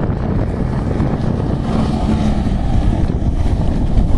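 Twin-hull ski boat underway on the water: a steady run of engine and hull noise, heavily mixed with wind rumbling on the microphone.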